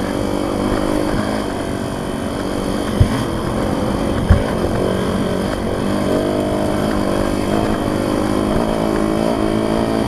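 Yamaha YZ dirt bike engine running under way, its pitch rising and falling as the throttle is worked. Two sharp knocks stand out, about three and four seconds in.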